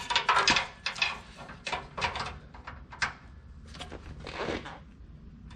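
Metal hand tools clinking and knocking: a socket wrench with an elbow-type attachment being handled and fitted onto an exhaust bolt. There is a cluster of irregular clicks in the first three seconds, then a softer scrape about four seconds in.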